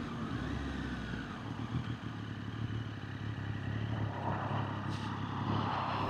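Triumph Street Triple 765RS inline three-cylinder engine running steadily at modest revs, through Spark headers and an Akrapovič link pipe with the baffle installed. A brief clatter comes about two seconds in.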